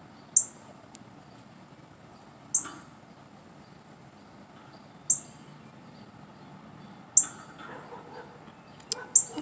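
Northern cardinal giving sharp, high chip calls, one roughly every two to two and a half seconds.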